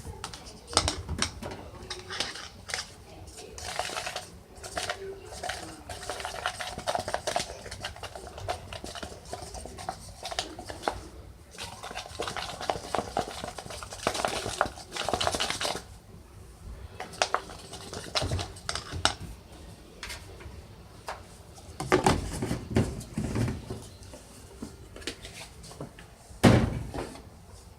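A utensil clinking and scraping against a container as slime is stirred, in irregular knocks and scrapes, with a few louder knocks near the end.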